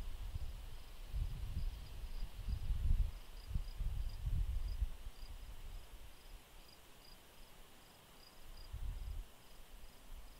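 Crickets chirping in a high, regular pulse that repeats a few times a second, over a steady insect hiss. Low gusts of wind rumble on the microphone, strongest in the first half and again briefly near the end.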